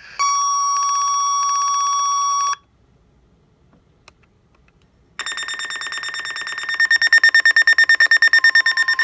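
Weather-radio emergency alert tones. A steady warning alarm tone sounds for about two and a half seconds and cuts off. After a pause of about two and a half seconds, a shrill electronic alarm starts and turns into rapid, even pulsing beeps about two seconds later.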